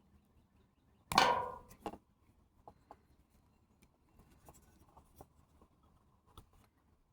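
Hand work on a power cord's plug: a sharp clatter about a second in, a smaller knock right after, then scattered light clicks and taps of small parts being handled.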